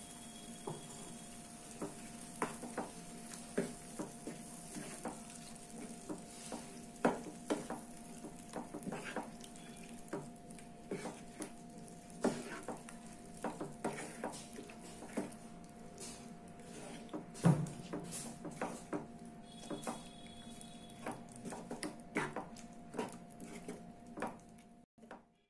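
Wooden spatula stirring chicken pieces into a thick curry masala in a non-stick pan, making irregular knocks and scrapes against the pan, with one sharper knock a little past the middle. A steady low hum runs underneath.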